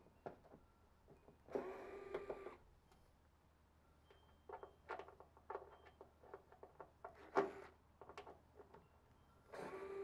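Cordless drill-driver running in two short bursts about a second long, one about a second and a half in and one near the end, backing screws out of a microwave oven's sheet-metal casing. Light metallic clicks and taps in between, one louder tap a little past the middle.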